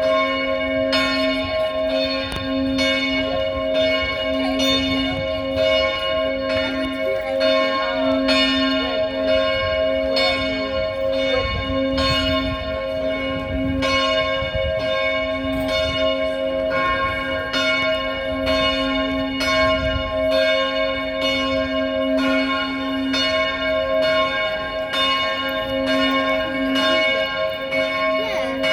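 A single church bell in a small tower tolling steadily, struck again and again at an even pace, its ringing tone carrying on between strokes.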